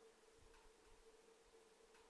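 Near silence: a wood fire burning in a closed wood stove, giving a couple of faint crackles over a steady faint hum.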